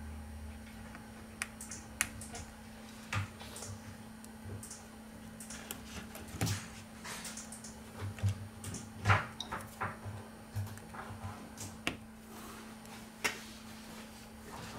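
Scattered small clicks and taps of a plastic spudger pressing and prying at an iPhone XS Max's internal connectors and flex cables, irregular, the loudest about nine seconds in, over a steady low hum.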